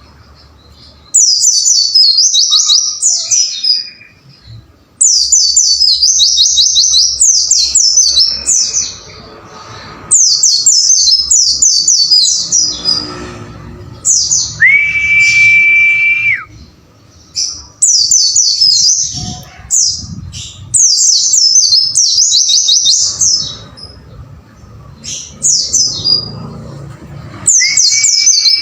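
White-eye (pleci) song: loud, rapid, high chattering trill phrases of a second or two each, repeated over and over with short pauses. Twice, once about halfway and again near the end, a steady high whistled note is held for about two seconds.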